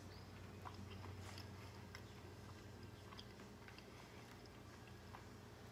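Faint chewing of a cocoa cream mosaic cookie, with a few soft scattered clicks and crunches, over a low steady hum.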